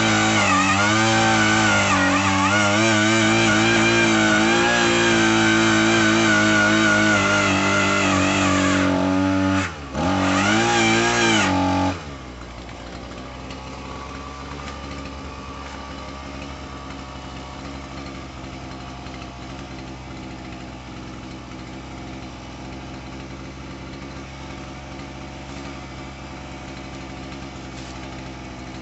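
Small two-stroke gas engine of a post hole auger running hard under load, its pitch wavering as the bit bores into the ground. About ten seconds in it dips briefly. About twelve seconds in it drops to a steady idle.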